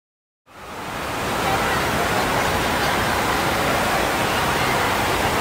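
Steady rush of moving water in an indoor water park's lazy river. It fades in from silence about half a second in and holds steady from about a second and a half.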